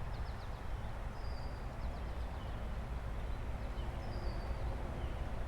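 Birds chirping faintly, a few quick runs of short high chirps and a brief whistled note now and then, over a steady low rumble of outdoor background noise.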